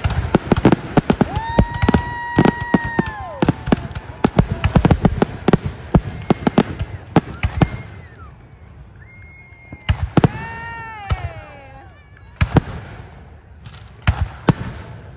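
Fireworks display: a rapid run of bangs and crackles for about the first half, thinning to scattered bangs later. Two long whistling fireworks cut through, each holding a steady pitch and then falling away.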